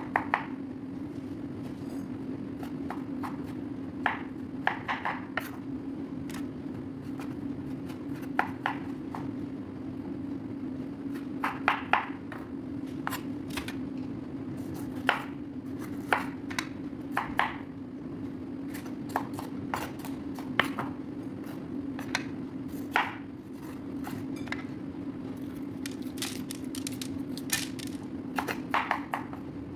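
Chef's knife cutting mushrooms and bell peppers on a wooden cutting board: the blade knocks on the board in irregular clusters of strokes, over a steady low hum.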